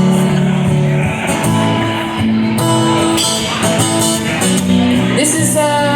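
Live band playing, with guitar prominent, sustained chords and a few sliding notes near the end. No singing yet.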